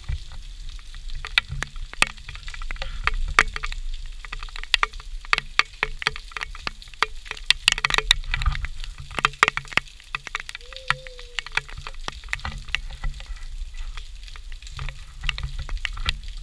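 Rain falling on a wet concrete patio, a steady hiss with many irregular sharp taps of drops landing close by.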